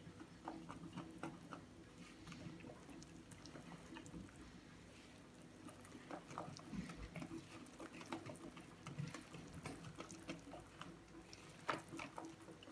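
Silicone-coated whisk stirring flour into a wet yogurt batter in a bowl: faint, irregular wet clicks and soft taps of the wires working the mixture, with a slightly louder tap near the end.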